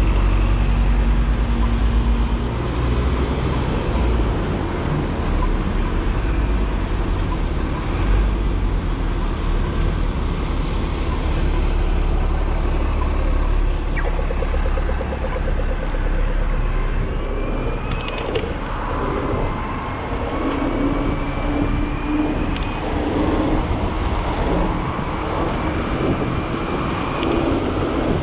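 City road traffic: the deep rumble of a diesel double-decker bus passing. From about halfway there is wind noise and tyre hum as the e-bike moves off, with a faint rising whine and a few clicks.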